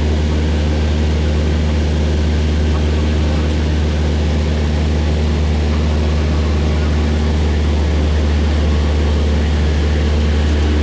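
Single-engine propeller plane's engine and propeller droning steadily, heard from inside the cabin in flight; a constant low hum with an even, unchanging pitch.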